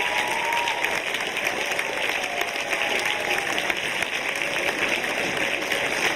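A packed hall's audience applauding steadily, with a few voices calling out underneath.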